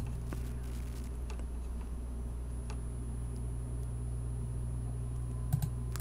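Computer mouse clicks: a few faint ones, then a sharper double click about five and a half seconds in, over a steady low electrical hum.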